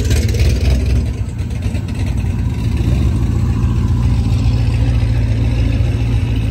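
Engines of muscle cars driving slowly past one after another, a steady deep rumble at low speed.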